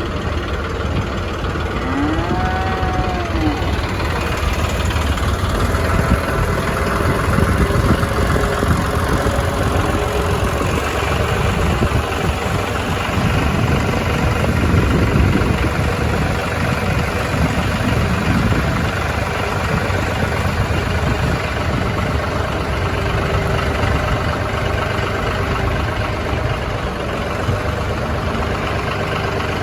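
An engine running steadily throughout, with one cow's moo about two seconds in.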